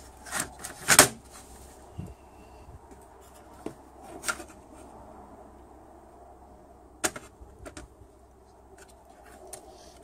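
Handling noise from taking apart a Mercedes PSE central-locking pump: its plastic housing parts, circuit board and small electric pump motor clicking and knocking against each other and on a metal tray. A few scattered sharp clicks, the loudest about a second in, others around four and seven seconds in.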